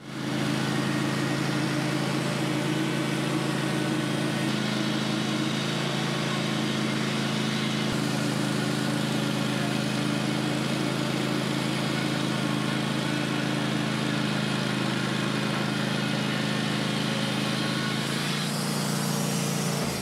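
Wood-Mizer portable bandsaw mill running steadily under load as its band blade makes a shallow levelling cut through a knotty pine log, an even engine hum under a dense hiss from the blade in the wood. The tone shifts slightly near the end.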